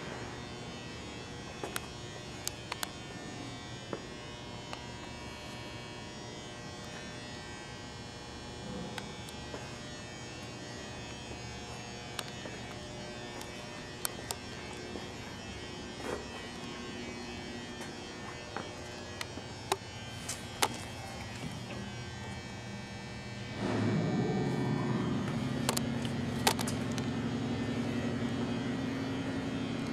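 Steady electrical hum with scattered sharp clicks and taps. About 24 seconds in, a machine starts up: a rising whine as it spins up, settling into a louder steady drone.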